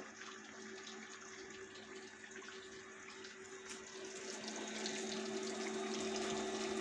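Hot cooking oil sizzling and crackling in a frying pan, growing louder over the last couple of seconds, over a steady low hum.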